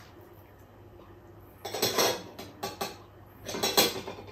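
Metal ladle clanking and scraping against a stainless steel stockpot, in two bursts of clatter, about two seconds in and again near the end.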